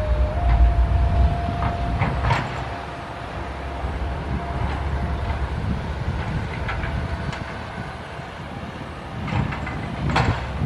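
SANY SY135F hydraulic excavator working: its diesel engine runs with a low rumble and a thin steady whine, and a few sharp clanks sound, the loudest about two seconds in and again near the end.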